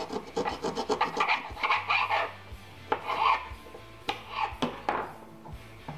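A knife blade sawing through a recoil pull starter's rope: a few separate scraping strokes with some light clicks as the excess rope is cut off.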